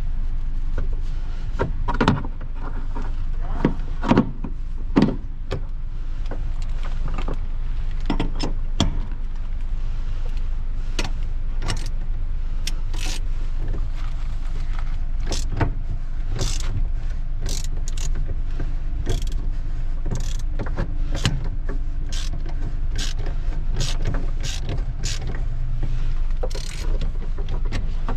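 Scattered clicks and knocks of small parts and hand tools being handled, many of them in quick succession, over a steady low hum.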